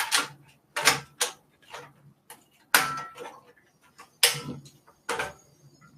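About six sharp clacks and clinks of a utensil knocking against a pan or dish, some with a brief metallic ring, spaced irregularly a second or so apart.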